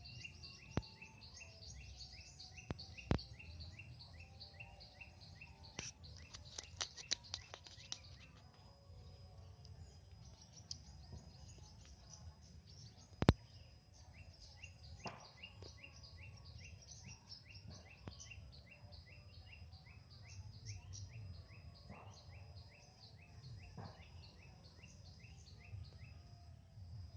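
Small birds chirping in fast, evenly repeated series, about four high chirps a second, pausing briefly around eight to ten seconds in. Scattered sharp knocks come through, the loudest about thirteen seconds in.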